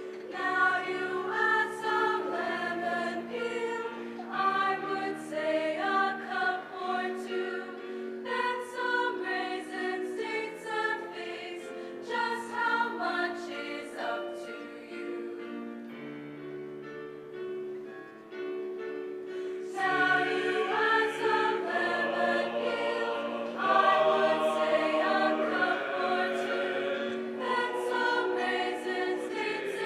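A choir singing together in held notes, with a softer passage past the middle before the voices swell louder again.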